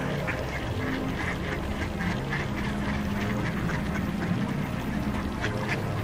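A flock of mallards quacking, many short calls overlapping without a break.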